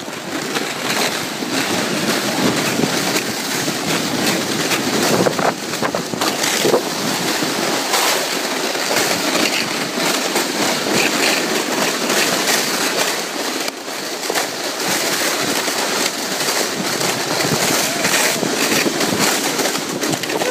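Plastic sled sliding over snow while pulled along, a steady rushing, scraping hiss mixed with wind on the microphone.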